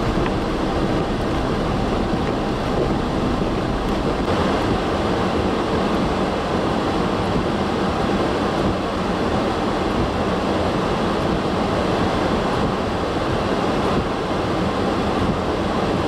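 Steady rushing wind noise, with gusts buffeting the microphone in a heavy snowstorm. The texture shifts slightly about four seconds in.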